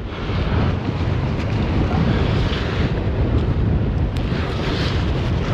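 Wind buffeting the microphone: a steady low rumble with a rushing hiss over it, and a faint click about four seconds in.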